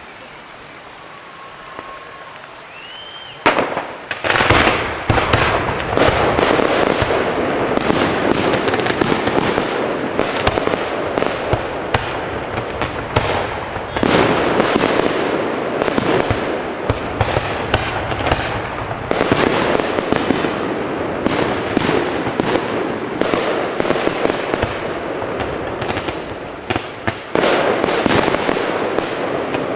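Fireworks display. A short rising whistle is followed, from about four seconds in, by a dense, continuous barrage of bangs and crackling.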